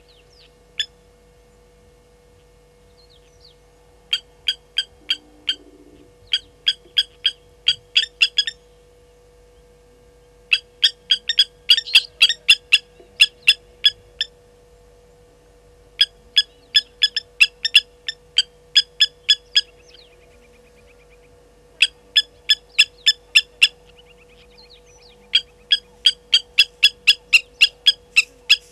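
Blacksmith lapwings giving their metallic 'tink-tink' alarm calls: fast runs of sharp, clicking notes, about four to five a second, in bouts of a few seconds with short pauses between. The birds are agitated by a slender mongoose.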